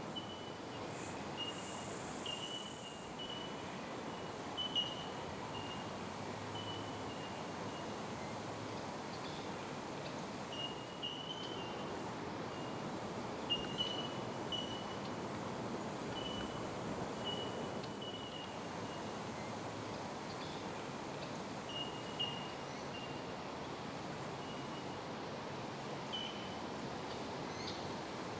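Bell miners (bellbirds) calling: short, clear, bell-like 'tink' notes repeated irregularly, several often in quick succession, over a steady background rush.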